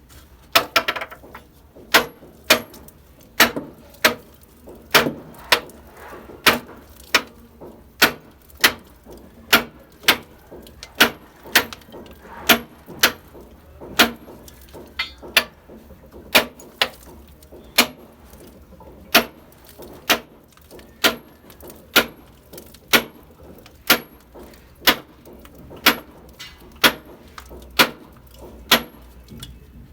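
Hammer blows on a steel chisel in a steady rhythm, a sharp metallic strike about every three-quarters of a second, chiselling out old galvanised iron pipe.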